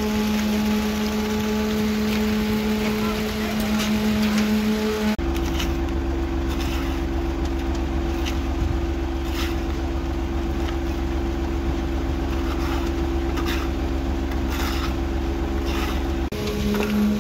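Steady drone of a concrete mixer truck's engine as concrete runs down its chute. In between, a different steady machine drone runs under scattered scrapes and knocks of a hand scoop and trowel working fresh concrete into steel test-cylinder moulds.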